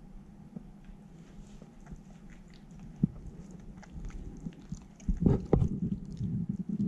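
A cat licking a dog's fur close to the microphone: soft wet licking and rubbing sounds, with a louder run of crackly, rustling sounds from about five seconds in.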